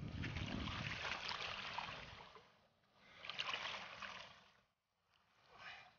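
Shallow water splashing and sloshing as an angler wades and lowers a large pike into it. The sound comes in three surges: a long loud one at the start, a second about three seconds in, and a smaller one near the end.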